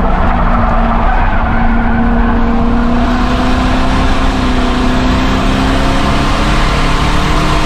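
Race car engine running hard and steady, its pitch rising slowly, with tyres squealing and scrubbing under cornering load.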